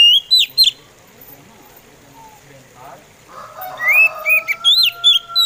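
Oriental magpie robin singing short phrases of clear whistled notes that slide up and down, one burst right at the start and another about two-thirds of the way through. Under the second burst a fainter long, drawn-out tone holds steady and falls off near the end.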